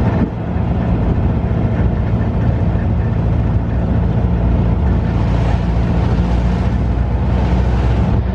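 Vehicle engine running steadily while driving, with road and wind noise that swells twice in the second half.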